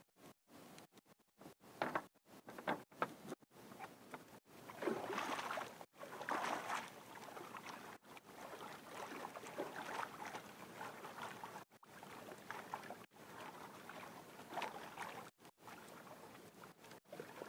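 Water sloshing and lapping against the hull of a small outrigger canoe in irregular swells as the longline is hauled in by hand over the side, with a few sharp knocks about two to three seconds in.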